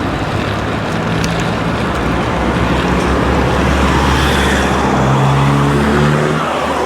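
A motor vehicle's engine running close by over a noisy background, its pitch climbing in steps from about four seconds in as it pulls away.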